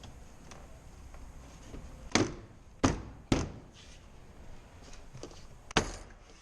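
Four sharp knocks on a car door, about two, three and three and a half seconds in and again near the end, from work on the door trim panel of a BMW F06 Gran Coupe.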